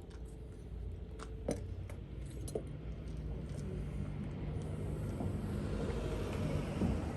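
A vehicle going by, heard as a low steady rumble with a rushing noise that swells over the second half. A few light clicks and clinks sound in the first half.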